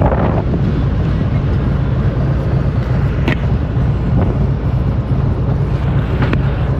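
Harley-Davidson Street Glide's V-twin engine running steadily, with wind noise on the microphone.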